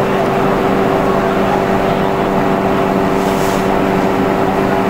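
Machinery running steadily: a constant hum over an even rushing noise, with a brief hiss about three and a half seconds in.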